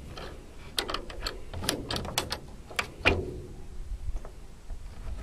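Fairing panel being fitted and pressed into place at the wing root of a Fournier RF5 motorglider: a string of light clicks and knocks. About three seconds in comes a louder knock that rings briefly.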